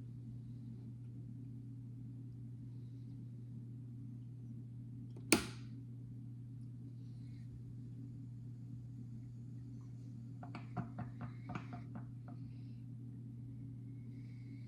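Steady low electrical hum, as from a Mr. Coffee drip coffee maker running through a brew. A single sharp click cuts in about five seconds in, and a quick run of about eight light clicks follows near ten to twelve seconds.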